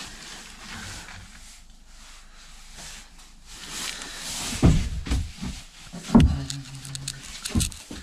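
Two heavy thumps about a second and a half apart, past the middle, followed by a few lighter knocks. Before them there is only a low, steady hiss.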